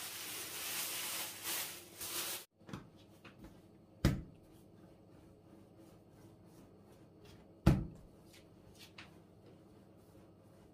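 Thin plastic carrier bag rustling and crinkling for about two seconds as it is pulled off a ball of dough. Then two sharp knocks on the wooden tabletop, about three and a half seconds apart, while the dough is rolled into a log by hand.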